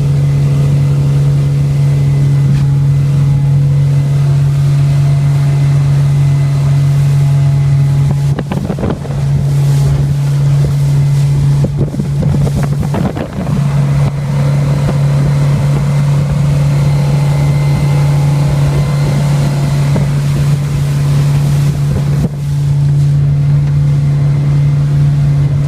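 Fishing boat's engine running with a steady low drone, briefly disturbed by noise a few times, about a third of the way in, around halfway and near the end.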